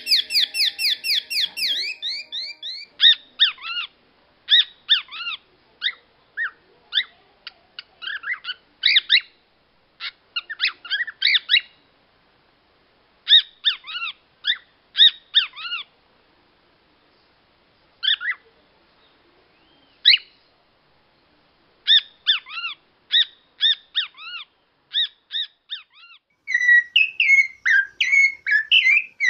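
Cockatiels whistling imitations of other birds' songs: a fast canary-style trill at the start, then repeated groups of short, sharp calls copying a great kiskadee (bem-te-vi), broken by pauses, and near the end a warbling phrase copying a sabiá thrush.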